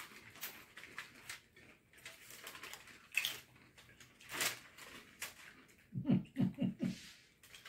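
Tortilla chips rustling and crunching as hands pick through a heaped tray of nacho chips and people eat them, in short irregular crackles. A short burst of laughter comes about six seconds in.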